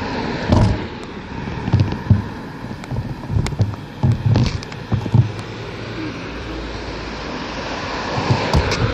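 Wind rushing over the microphone of a moving bicycle's camera, with irregular low thumps and a few sharp rattles as the bike rolls over an uneven surface.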